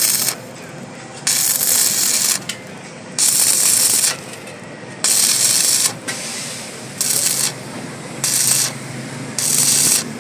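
Electric welding arc crackling in short bursts, struck and broken about seven times, each burst under a second with brief pauses between: welding done in short stitches or tacks.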